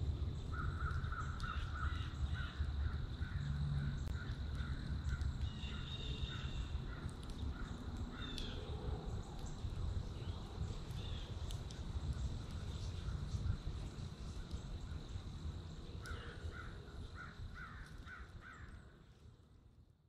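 Crows cawing in series of short repeated calls, about three a second: one series near the start and another about sixteen seconds in, with scattered calls between. A steady low rumble runs underneath, and everything fades out over the last couple of seconds.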